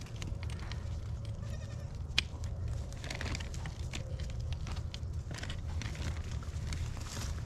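Goats bleating faintly, with one sharp click about two seconds in as a plastic insulator clip is pushed onto a steel T-post.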